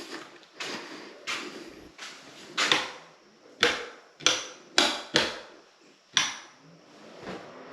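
A run of about ten sharp knocks and clacks, irregularly spaced, each ringing briefly in a hard, echoing room.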